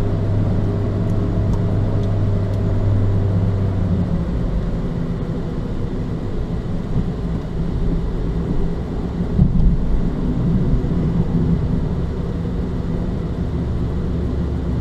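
Car engine and road noise heard from inside the cabin while driving, a steady low hum. The engine's note shifts about four seconds in and again near the end, with a brief louder rumble a little past the middle.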